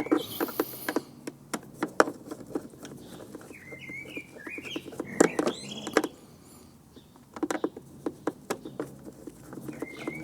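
Clicks and knocks of plastic casing and small parts being handled while a pressure washer is taken apart, with a brief hiss at the start. A bird chirps in the background, loudest about four to five seconds in.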